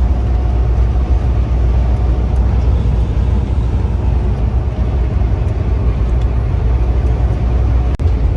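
Semi truck driving at highway speed, heard from inside the cab: a steady low rumble of engine and road noise.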